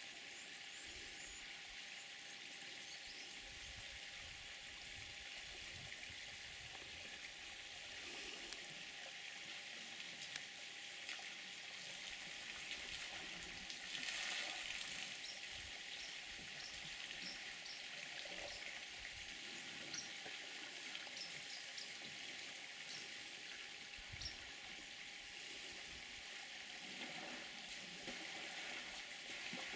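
Faint steady hiss of outdoor bush ambience, with scattered faint high chirps and a few low bumps on the microphone. Near the end, faint water splashing as an elephant stirs the waterhole with its trunk.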